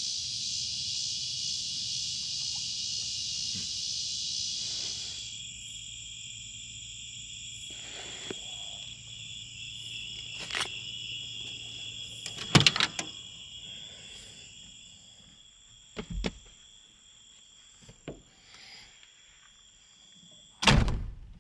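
Chorus of night insects trilling steadily in several high, even tones. It is loudest for the first five seconds, then grows fainter toward the end. A few knocks and clunks come through, the loudest near the end.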